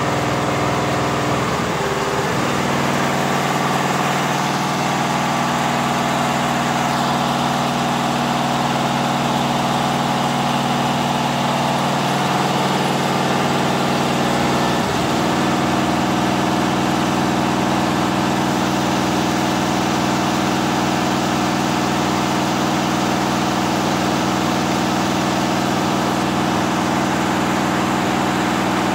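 Richpeace 12-head flat embroidery machine running, its heads stitching together in a loud, steady mechanical hum.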